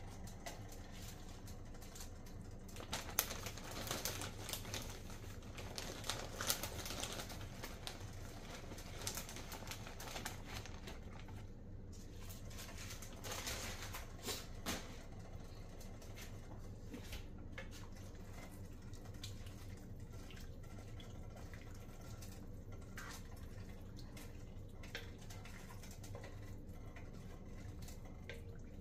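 Plastic zip-top bag rustling as halved baby bok choy is taken out and dropped into a pot of broth: a scatter of crinkles and light taps, busiest in the first third and again about halfway through, over a steady low hum.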